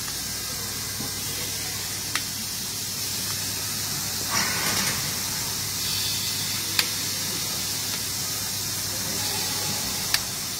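Robotic TIG welding cell: a steady hiss over a low electrical hum, with three sharp clicks a few seconds apart and a short rush of noise about four seconds in.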